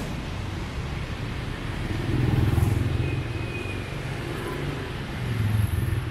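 Motorbike engines and street traffic: a steady low rumble that swells about two seconds in and again near the end.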